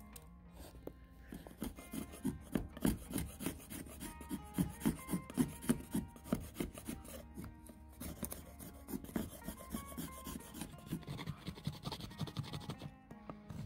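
Saw teeth on the back of a machete blade rasping through a wooden stick in regular back-and-forth strokes, about two a second. After a short break about eight seconds in, a knife shaves and scrapes wood in similar strokes.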